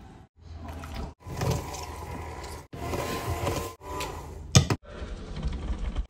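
Electric hand mixer running, its beaters working sugar and oil in a ceramic bowl, heard in short stretches broken by abrupt cuts. A sharp click about 4.5 seconds in.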